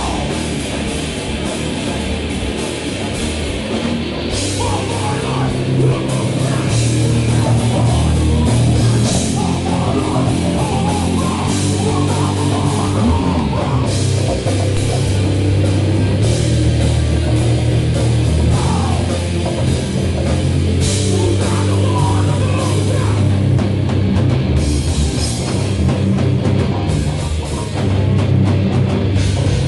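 A hardcore/metal band playing loud live: distorted electric guitar and bass over a pounding drum kit, with cymbal crashes recurring every few seconds.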